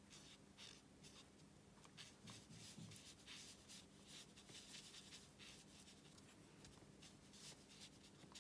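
Faint scratchy swishing of a watercolour brush being worked back and forth on watercolour paper in many short strokes, with a faint steady low hum underneath.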